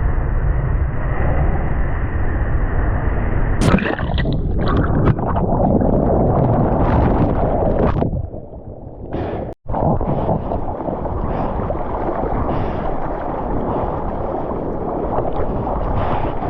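Ocean surf and water rushing, a loud, steady noise with no clear pitch, dropping out for a moment about nine and a half seconds in.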